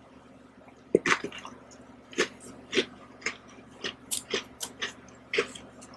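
Crunching of an Oreo chocolate sandwich cookie being chewed. There is a sharp crack about a second in, then crisp crunches at roughly two a second.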